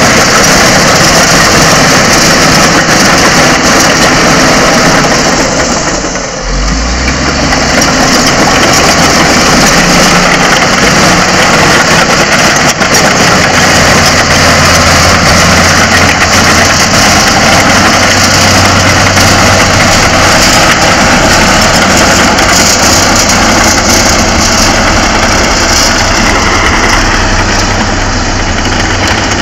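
Diesel engine of a Shantui SD16E crawler bulldozer running steadily as the dozer works the road with its blade. There is a brief dip about six seconds in, after which a low steady hum comes in under the engine.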